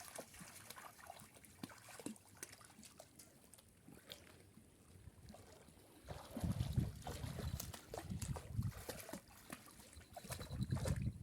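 Water trickling and lapping, with small scattered clicks. From about six seconds in, pulsing low rumbles join it, like wind buffeting the microphone.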